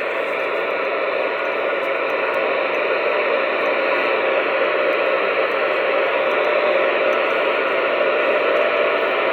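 Two-way radio static: a steady hiss of an open channel with no voice on it, narrow in pitch like sound through a radio, with a few faint steady tones under it, growing slightly louder.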